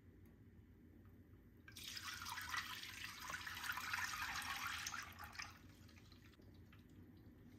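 Thin chickpea-flour batter poured from a jug into a glass baking dish, a splashing pour that starts about two seconds in and lasts about four seconds.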